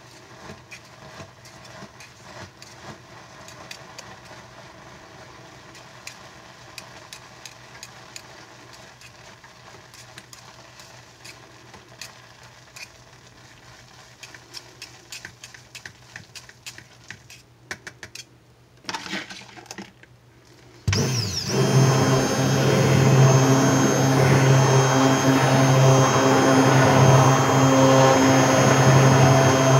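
A hand whisk clicking irregularly against a mixing bowl as oils, butters and lye-coffee solution are stirred together by hand for soap. About two-thirds of the way in, an electric stick blender is switched on and runs steadily with a low hum, blending the soap batter.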